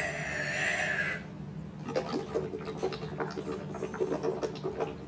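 Slurping a drink through a straw: a squeaky, hissing suck lasting about a second, then a run of small wet gurgles and clicks.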